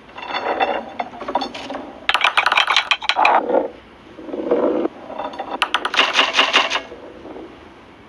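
Marble-run sound effects: small balls rolling and clattering through wire and wooden tracks and striking levers. They come in several bursts of rapid clicking and rattling, some with a light metallic ring.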